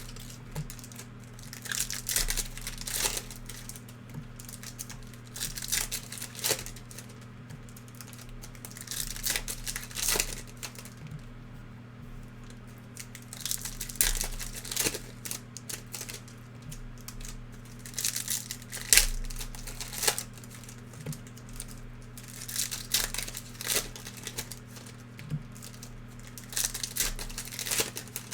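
Wrappers of Panini NBA Hoops basketball card packs being torn open and crinkled by hand, in irregular crackly bursts every second or so.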